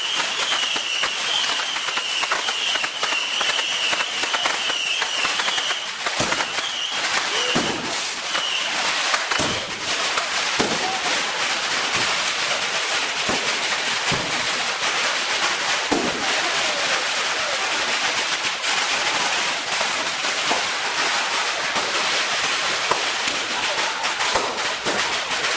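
Fireworks going off in rapid succession: many sharp bangs over continuous crackling, with a wavering high whistle during the first eight seconds or so.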